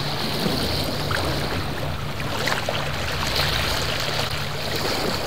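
Water rushing and splashing along a sailboat's hull as it moves through choppy sea, with a steady low hum underneath.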